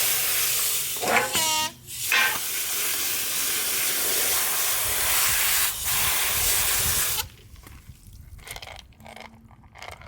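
Compressed air hissing from a blow gun as freshly Chem-Dipped carburetor parts are blown dry, with a brief whistle about a second in and a few short breaks in the flow. The air cuts off suddenly about seven seconds in, leaving light handling clicks.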